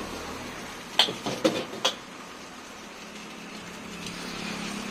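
A metal ladle knocks against a steel wok four times in quick succession about a second in, over the steady hiss of the gas burner under the wok.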